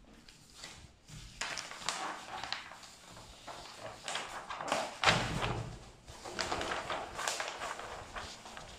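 A large sheet of stiff printed paper being unrolled and flattened by hand, rustling and crackling, with a thump about five seconds in.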